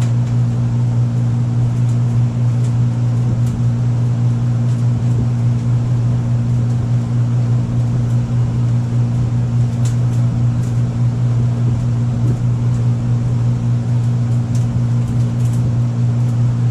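Steady low mechanical hum of machinery running in a food truck kitchen, even in level throughout, with a few faint ticks.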